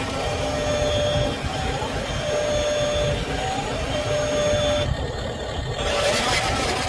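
A repeating electronic tone, a steady note followed by a short upward slide, sounding about every second and a half, from the RC dump truck's sound module. A low rumbling noise runs beneath it, and a hissy rustle swells near the end.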